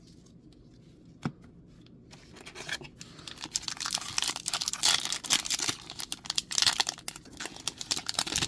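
Foil booster pack wrapper being torn open and crinkled by hand. After a quiet start with a single click, the crackling begins a couple of seconds in and gets louder and denser toward the end.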